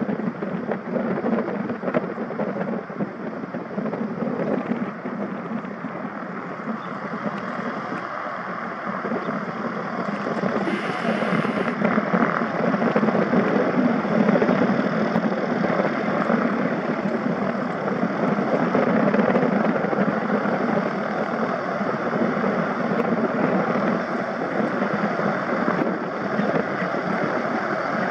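Twin-engine propeller aircraft taxiing, both engines running at low power with a steady drone that grows louder about halfway through as the plane comes closer.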